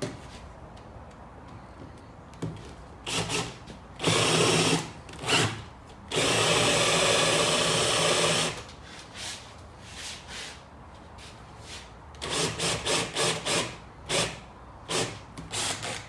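Cordless drill boring shallow holes into an old wooden deck board, run in bursts: a short burst, a run of about a second, a steady run of about two seconds, then a string of quick pulses as the bit is eased in to its depth mark.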